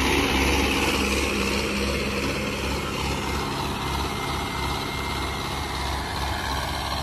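Turbocharged Mahindra 575 tractor's four-cylinder diesel engine running steadily under load while pulling a cultivator through the soil, growing a little fainter as the tractor moves off.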